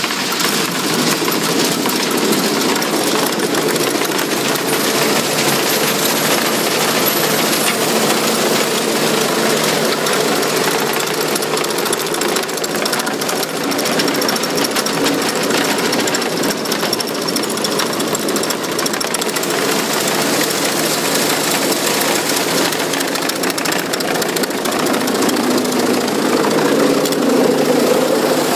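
Cedarapids MVP 280 cone crusher plant running: a loud, steady mechanical clatter and drone from the crusher and its drive, without let-up.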